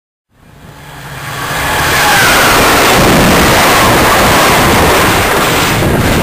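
A VIA Rail passenger train of stainless-steel cars passing close by at speed. The loud, steady rush of wheels on rail and moving air builds over the first two seconds and eases a little near the end as the last car goes by.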